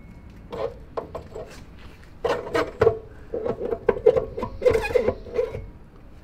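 Irregular metal knocks and clunks as the ATC 70's greased, splined rear axle is worked through its housing and bearing, a few at first, then a quick run of them for several seconds.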